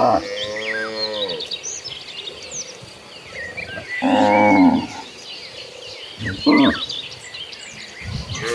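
Cattle mooing: several separate moos with a slowly falling pitch, one at the start, a loud one about four seconds in, a short one about six and a half seconds in, and another starting near the end.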